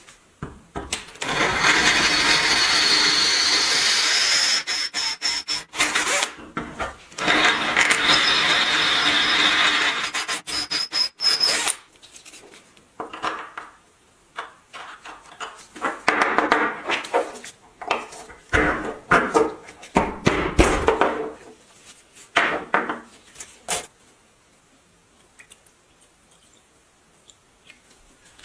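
Power tool running in two bursts of about three seconds each, then shorter, intermittent runs and handling noises.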